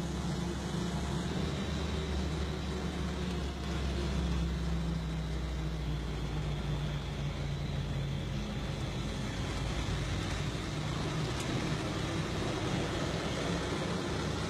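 Steady engine and road noise of a moving vehicle, heard from inside it: a continuous low engine hum under a hiss of tyre and wind noise.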